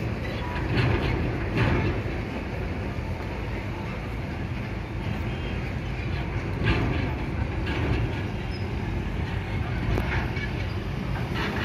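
Steady low rumble of vehicles moving on a ferry landing ramp, with about five sharp knocks scattered through it.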